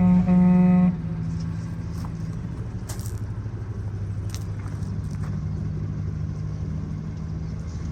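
A New Holland B95 loader backhoe's diesel engine running steadily, with light rattles. A loud buzzing beep-tone sounds for about a second at the start.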